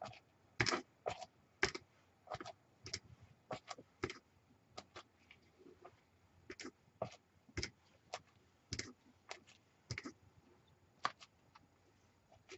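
Light, irregular taps and clicks, about one or two a second: a craft stamp being inked and pressed onto paper pages.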